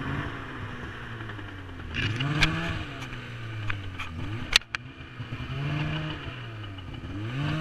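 Snowmobile engine revving up and easing off again and again while riding across snow, its pitch climbing and falling about three times. There is wind hiss on the microphone and a couple of sharp clicks.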